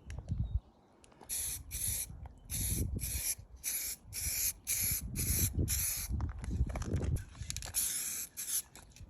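Clear lacquer being sprayed onto car paintwork in about a dozen short hissing bursts, each about a third of a second, with a pause of a second or so before the last few. A low rumble comes and goes underneath.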